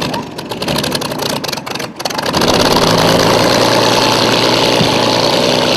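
Vintage racing hydroplane's engine running rough and uneven, then about two seconds in coming up suddenly to a loud, steady run.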